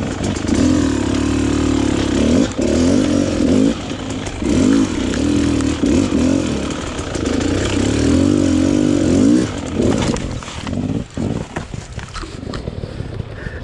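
Dirt bike engine under throttle on a rough trail, its pitch rising and falling over and over as the throttle is worked. After about ten seconds the engine drops off to a lower, uneven note, with scattered knocks and clatter.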